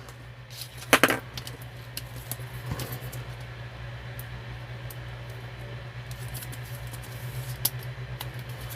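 Trading cards being handled and sorted by hand: faint scattered clicks and rustles, with one sharper snap about a second in, over a steady low hum.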